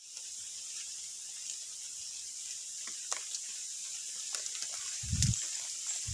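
Steady high-pitched drone of insects in tropical forest, with a few faint ticks and a brief low rumble about five seconds in.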